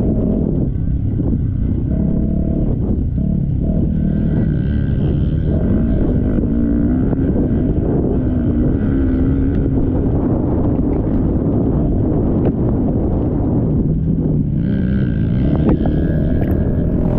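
Motocross bike engines running hard in a race, revving up and down, with the pitch rising and falling over a steady low rumble.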